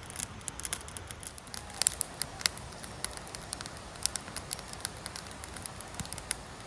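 Small wood campfire crackling: an irregular run of sharp snaps and pops, with a few louder cracks now and then.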